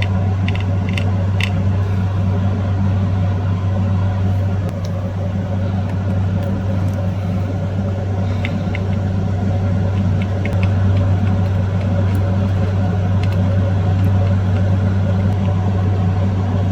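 A steady low mechanical hum runs throughout, with a few light clicks in the first second and a half and again about eight and a half seconds in.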